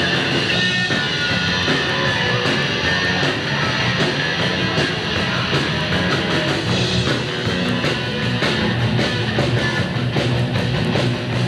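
A live rock band playing: electric guitars over bass and drums, with the drum and cymbal hits standing out more clearly from about halfway through.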